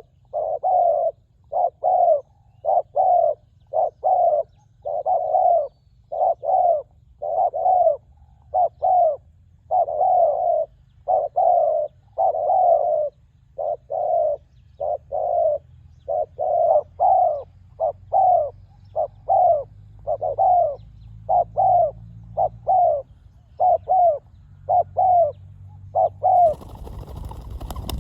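Spotted doves cooing: a long run of short, mellow coo notes, about one and a half a second. Near the end the cooing stops and a rough rustling noise comes in.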